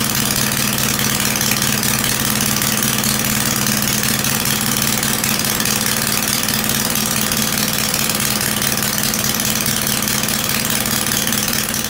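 Small petrol engine running steadily and belt-driving a grain grinding mill as soaked grains are fed into its hopper. It is a loud, even mechanical hum with a constant rushing noise from the mill.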